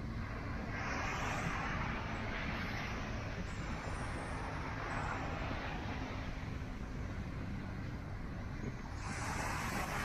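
Sea wind buffeting the microphone in a steady low rumble, with waves breaking and washing up the sand in swells about a second in, around five seconds in and again near the end.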